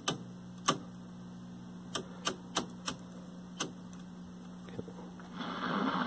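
Rotary channel selector of a 1973 Admiral hybrid colour TV clicking through its detents, about seven sharp clicks, over a steady hum from the set's speaker. About five seconds in, a hiss of static comes up from the speaker as the tuner lands on an empty channel.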